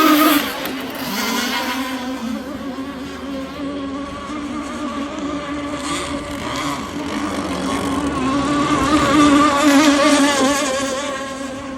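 Twin 30cc two-stroke gas engines of a radio-controlled twin-rigger racing boat, modified Zenoah motors, running at speed with a high buzzing drone. It dips just after the start, then grows to its loudest about nine to ten seconds in and fades a little near the end.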